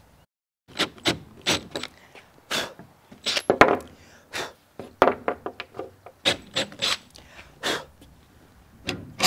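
Short, irregular scraping strokes, about one to three a second, as of a hand tool worked over metal. They end with one loud knock that rings, as something heavy drops into place.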